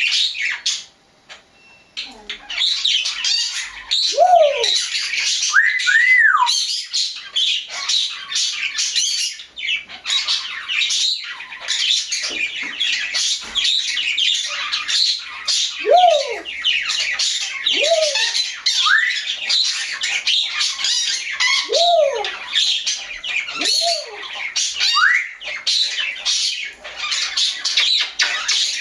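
African grey parrot squawking and chattering almost nonstop: rough, scratchy calls mixed with short whistles that rise and then fall in pitch, with a brief pause about a second in.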